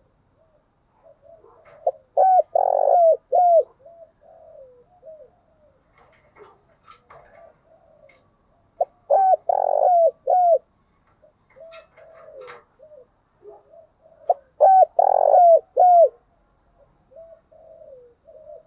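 Spotted dove cooing: three loud phrases of several low coos, about six seconds apart, with softer cooing notes in between.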